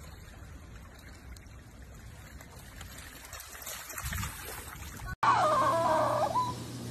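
Faint steady water hiss of a rain-soaked road, then, after a sudden cut, a French bulldog's high whine that rises and falls for about a second.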